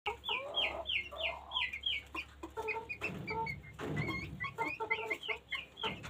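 Chickens clucking and peeping: a steady run of quick, short, high falling chirps, two or three a second, with lower clucking calls in between.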